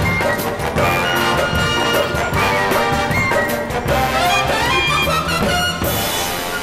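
Background music led by brass, in a jazzy big-band style, with a steady beat. A rising run of notes comes about four seconds in, and a burst of hiss near the end.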